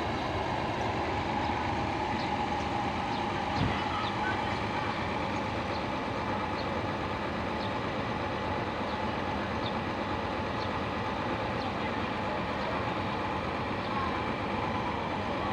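A vehicle engine running steadily, with faint small ticks over it and one short knock about three and a half seconds in.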